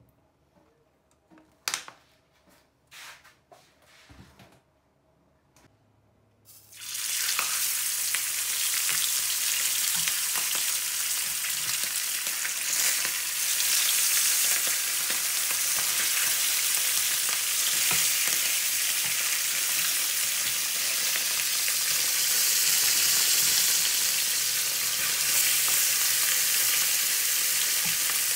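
Whole horse mackerel frying in hot vegetable oil in a frying pan: a loud, steady sizzle that starts abruptly about seven seconds in as the fish go into the oil. Before that, a few light knocks.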